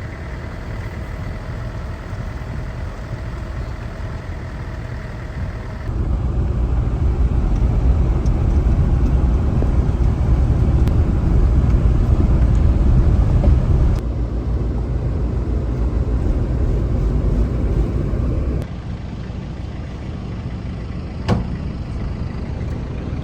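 Car driving, a steady low rumble of engine and tyre noise that gets louder about six seconds in and eases off again in two steps later on. A single sharp knock near the end.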